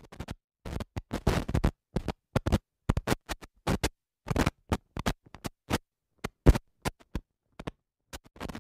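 Old-film crackle sound effect: irregular scratchy pops and crackles, like a worn film soundtrack played on a projector, coming in short clusters with gaps of silence between.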